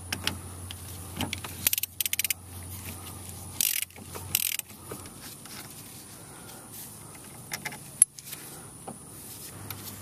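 Metal clinking and rattling of a socket wrench and steel suspension hardware being worked by hand. A quick run of ratchet-like clicks comes about two seconds in, short scrapes follow, and a single sharp metallic click comes about eight seconds in.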